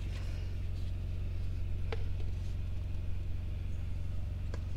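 Steady low drone of an idling engine, with two light clinks of a metal ladle against the Instant Pot's inner pot, about two seconds in and near the end.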